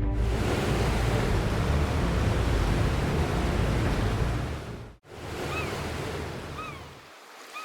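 Ocean waves and surf, a steady rushing that cuts off abruptly about five seconds in. Quieter surf follows, with three short high chirping calls.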